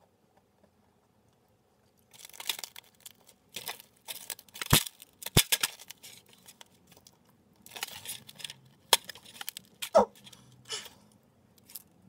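Irregular crinkling and rustling with several sharp clicks, starting about two seconds in after a short near-silence.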